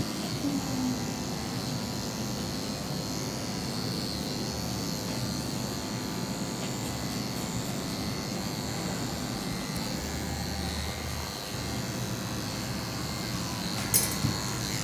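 Corded electric dog grooming clippers running with a steady hum as they shave through a small dog's thick coat, with a brief click near the end.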